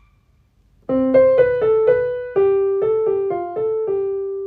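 Piano playing the first part of a melodic phrase in C major: about a dozen single notes that start about a second in, ending on a long held note that slowly fades.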